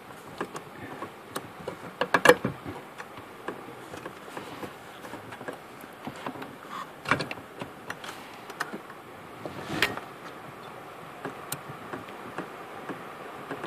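Scattered small clicks and knocks of hands working parts at a pickup's brake pedal, fitting a brake light switch and its snap clip onto the pedal rod. A cluster of sharper knocks comes about two seconds in, with single louder ones near seven and ten seconds in.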